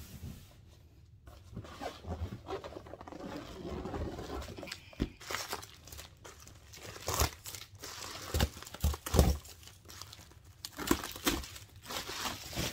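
Bubble wrap and packaging crinkling and rustling as they are handled, with several sharp knocks mixed in; it starts about a second in after a short quiet stretch.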